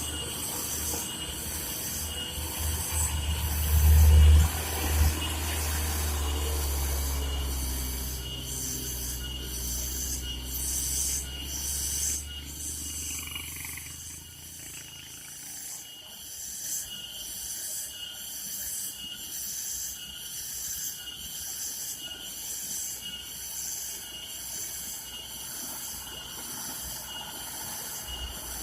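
A heavy truck's diesel engine labouring uphill, loudest about four seconds in, then fading away by the middle. A pulsing high hiss runs throughout.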